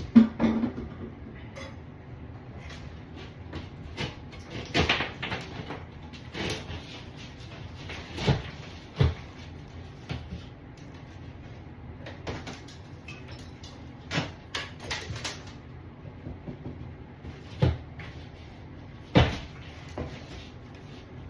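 Irregular knocks, clicks and scrapes of hand work on a drywall panel being pried loose from the wall, with a sharp knock at the very start and clusters of knocks every few seconds.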